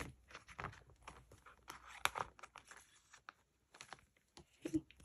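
Photocards being handled and slid into the clear plastic pockets of a binder page: faint crinkling of the plastic sleeves with scattered short scrapes and taps, a slightly louder pair of taps near the end.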